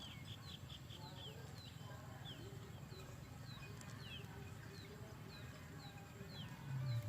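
A bird repeating a short, high, falling chirp about twice a second over a low steady background, with a louder low-pitched sound swelling just before the end.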